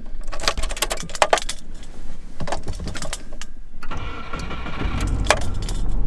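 Car keys jangling and clicking as the key goes into the ignition of a Subaru Forester. About four seconds in, the starter turns over the flat-four engine, which catches and keeps running. The starter now engages after the rusted terminal on its small signal wire was cleaned, curing the no-crank fault.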